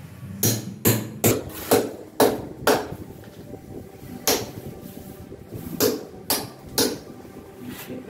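Hammer striking a chisel against a cement wall along a marked line, about ten sharp blows: six in quick succession in the first three seconds, then four more spaced out.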